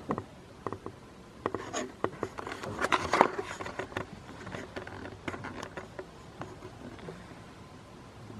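Close rustling and scraping with a flurry of small knocks, busiest a couple of seconds in, as a goat's furry body brushes and bumps against the camera.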